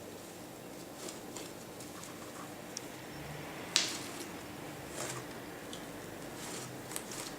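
Glue and shaving-foam slime being handled and stretched in the hands, giving faint sticky clicks and crackles, with one sharper click a little before the middle.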